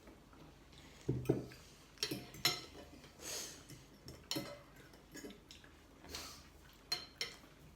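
Spoons and bowls clinking at a table during a meal of noodle soup: a dozen or so short, scattered clinks and scrapes, none of them loud.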